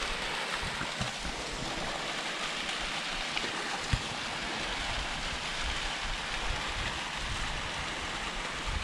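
Small waterfall, thin streams of water falling and splashing onto rock, a steady rushing hiss. A single brief low thump about four seconds in.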